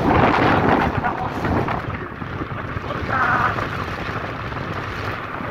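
Wind buffeting a phone's microphone on a moving motorcycle: a steady, dense rush of noise.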